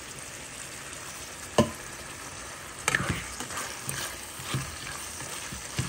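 Chicken livers and onions sizzling in a frying pan, with a utensil stirring and knocking against the pan several times. The sharpest knock comes about a second and a half in.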